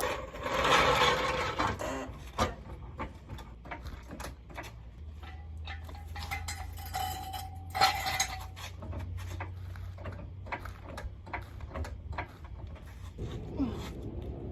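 Scattered metal clinks and knocks of tools and parts being handled, over a low steady hum.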